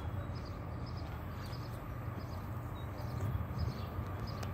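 Outdoor ambience: birds chirping repeatedly in short high notes over a steady low rumble.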